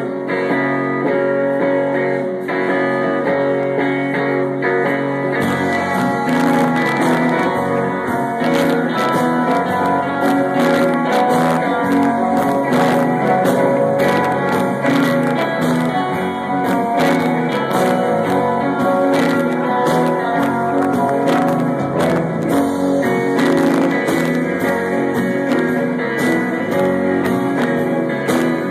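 Live psych-rock band playing, heard through a phone's microphone. An electric guitar plays alone at first; about five seconds in, bass and drums come in and the full band plays on steadily.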